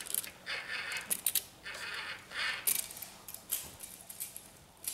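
Handling noise while a plastic RC model loader is measured: scattered light clicks and taps, with a few short scraping or rustling sounds about half a second long.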